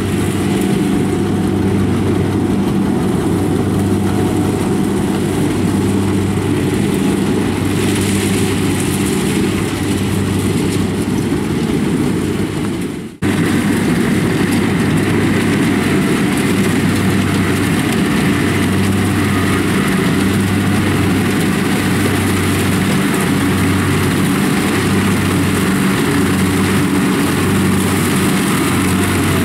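Kubota DC-70 rice combine harvester's diesel engine and threshing machinery running steadily under load as it cuts rice, with a momentary break about halfway through.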